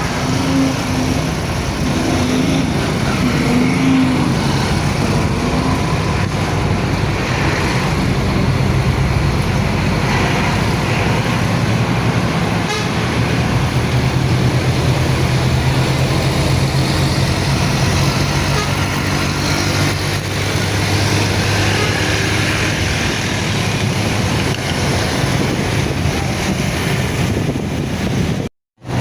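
Busy street traffic: vehicle engines running with car horns tooting, loudest in the first few seconds. The sound cuts out for a moment near the end.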